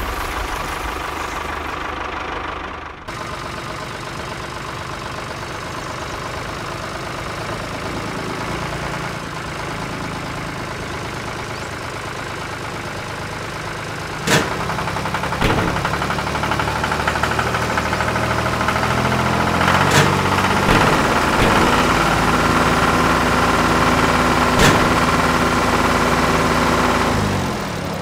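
Tractor engine running steadily, with a break in the sound about three seconds in and a few sharp knocks in the second half.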